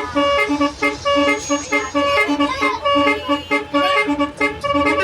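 Bus 'telolet' horn, a multi-tone horn playing a melody, sounding a fast repeating tune of short toots, several a second.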